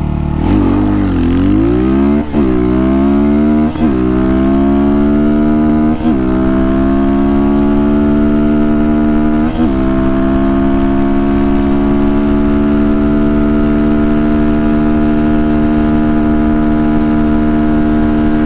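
XPro Templar X 250cc dirt bike engine with a 30mm Nibbi carburetor, accelerating hard from a launch with the rear tire spinning. Its pitch climbs and drops back at four upshifts in the first ten seconds, then holds high and steady at full throttle.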